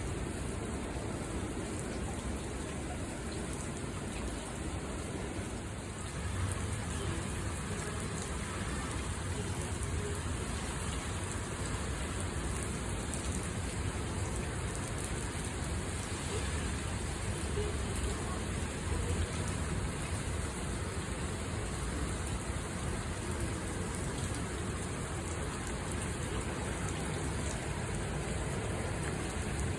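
Typhoon rain and wind: a steady rush of heavy rain with wind, growing a little louder about six seconds in.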